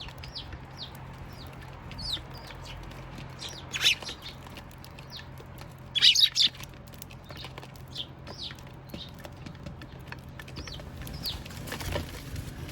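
Eurasian tree sparrows chirping over and over: short, quick, downward-sliding chirps, with two louder bursts at about four and six seconds in. A steady low hum runs underneath.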